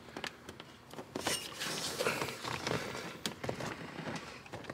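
Handling noise of hands working a hose and clamp in a cramped engine bay: scattered light clicks, small knocks and rustling as the hose is twisted to check that the clamp is tight.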